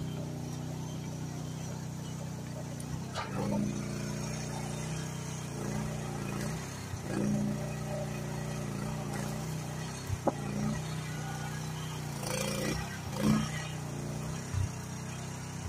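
Groundhog KH14G mini excavator's engine running steadily while the machine moves, with several brief knocks, the sharpest about ten seconds in.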